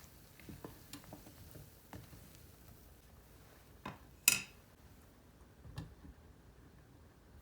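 Quiet handling sounds: scattered light taps and knocks, with one sharp, ringing clink of a hard object a little past four seconds in.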